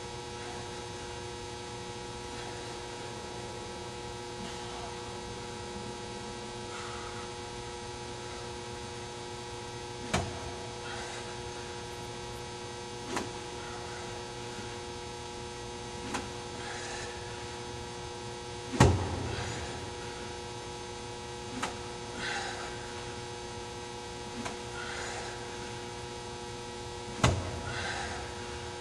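Steady electrical mains hum with a few faint swishes of practice golf swings. Several sharp knocks come in the second half, the loudest a little past the middle and another near the end.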